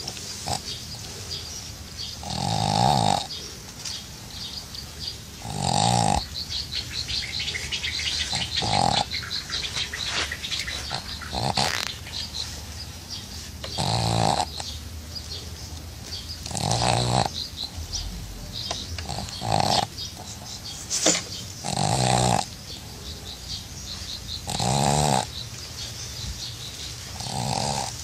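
A sleeping dog snoring, one snore about every three seconds, each lasting under a second.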